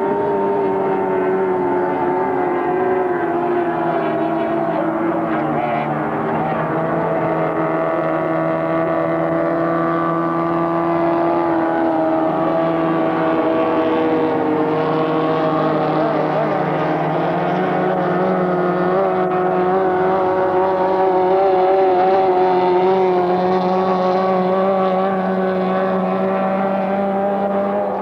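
Racing three-point hydroplane engines running at speed, a steady multi-tone drone whose pitch drifts slowly, a little louder a few seconds before the end.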